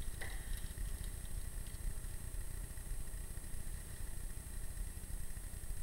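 Low, steady background rumble with no distinct events, along with a faint constant high-pitched whine.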